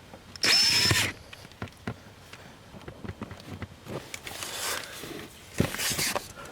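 Screws being driven to fasten a dead pedal extension in a car footwell: a short loud burst with a rising and falling whine about half a second in, a second burst near the end, and small knocks and rustling between.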